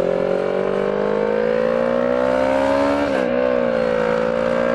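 Motorcycle engine running under way, its pitch slowly rising as it pulls for about three seconds, dipping briefly, then holding steady, with a steady rush of wind noise underneath.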